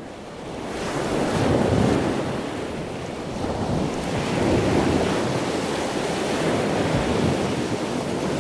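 Ocean surf: waves washing in as a steady rushing noise that fades in over the first second or so and then swells and eases slowly.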